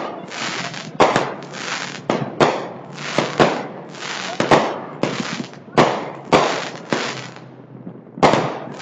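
Commercial-grade fireworks going off in quick succession, a sharp bang about every half second, each trailing off in a crackling hiss. The bangs pause briefly before one more loud bang near the end.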